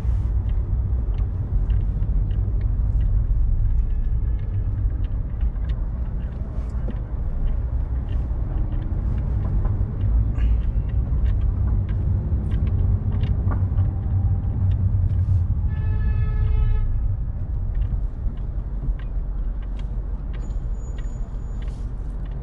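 Steady low rumble of a car driving in city traffic. About two-thirds of the way through, a short steady higher tone sounds for about a second.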